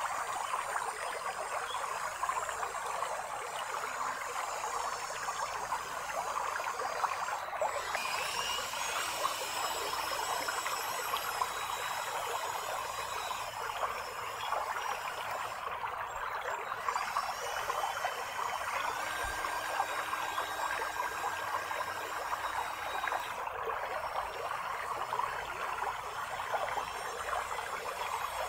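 Creek water flowing and trickling steadily.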